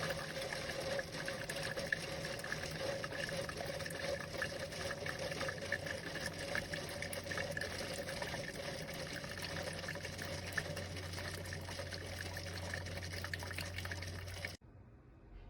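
Keurig K-Iced single-serve coffee maker running a brew cycle: water streaming through with a steady pump hum. A deeper hum joins about two-thirds of the way in, then the machine cuts off suddenly near the end.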